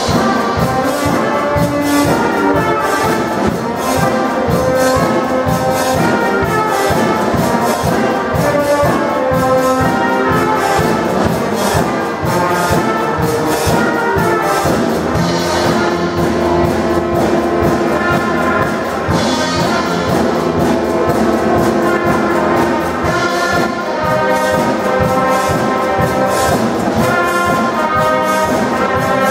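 Youth wind band of saxophones, trumpets, trombone and tuba playing a tune together, with percussion keeping a steady beat.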